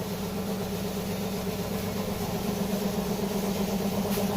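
A motor running steadily at a constant speed, with an even hum.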